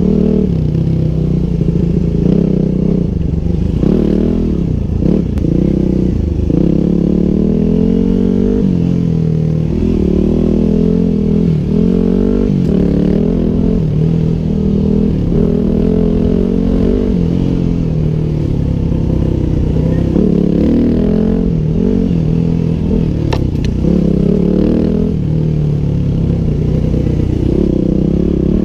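2009 Yamaha WR250X's 250 cc single-cylinder four-stroke engine running under way on a dirt trail, its pitch rising and falling as the throttle is opened and closed.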